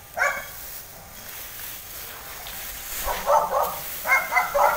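A dog barking: one bark just after the start, then two short bouts of barks near the end.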